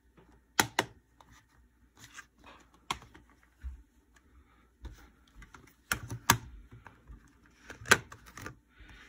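Plastic Blu-ray cases being handled on a wooden table: scattered sharp clicks and taps, with the loudest coming in pairs just after the start, about six seconds in, and near eight seconds.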